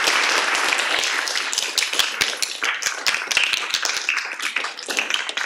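Audience applauding, a dense patter of many hands clapping that thins out toward the end.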